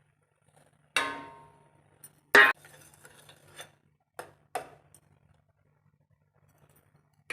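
Metal kitchen utensils clinking and knocking. A ringing clink about a second in fades quickly, a louder sharp knock follows a little later, then a few lighter taps.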